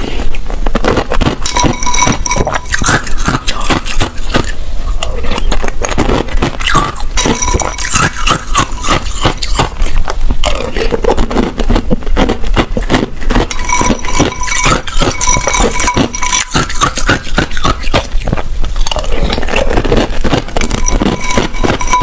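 Pieces of ice being crunched between the teeth close to the microphone: a dense, continuous run of sharp cracks and crackles.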